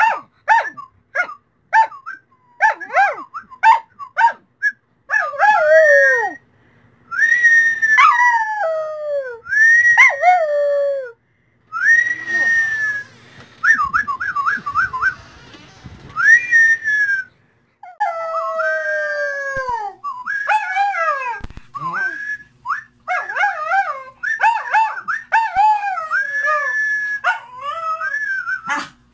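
Small dog 'singing': high-pitched howls that slide and warble, starting with quick short notes and moving into long howls that fall steeply in pitch.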